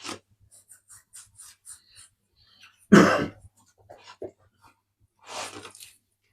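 A person's cough about three seconds in, with a second, softer cough-like burst near the end, and faint light ticks in between.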